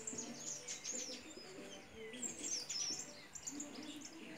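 Small birds chirping faintly, a run of many quick, high, sweeping chirps.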